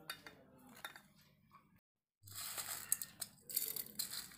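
Small, light objects falling into a steel jar: first a few faint clicks as garlic cloves drop in, then a rattling patter of coriander seeds being tipped in from a steel bowl. There is a brief dead silence about two seconds in.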